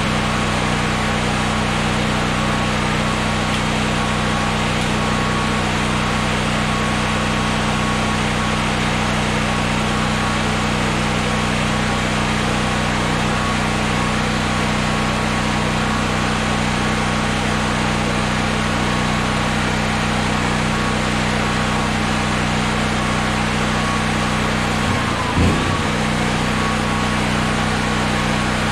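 Honda EB6500X generator's single-cylinder GX390 engine running steadily, with one short thump about three-quarters of the way through.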